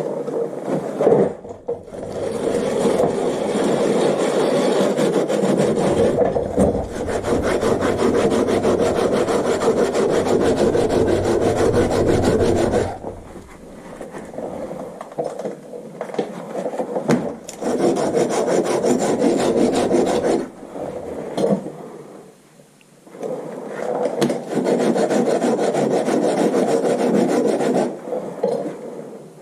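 Rapid abrasive scraping of a brake part, in three long stretches with short pauses, the middle stretch quieter: rust and dirt being scrubbed or filed off during a rear brake service.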